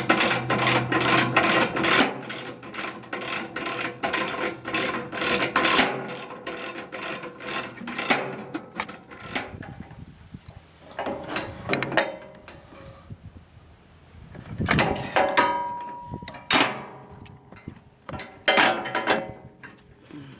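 Hand ratchet wrench clicking steadily, about three clicks a second, while driving screws on the mini excavator's panel. The clicking stops after about eight seconds and gives way to scattered metal clinks and knocks.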